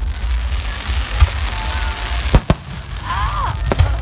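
Fireworks display: aerial shells bursting overhead over a steady crackle. There is a deep boom about a second in, two sharp bangs in quick succession a little past halfway, and another boom near the end.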